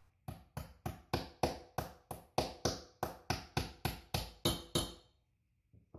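Small hammer tapping a pin down into a Desert Eagle pistol frame: a run of about sixteen quick, even metallic taps, roughly three a second, each with a short ring, stopping after about five seconds.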